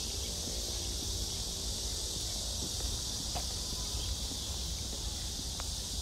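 A steady, high-pitched chorus of insects over a low rumble, with faint voices near the start.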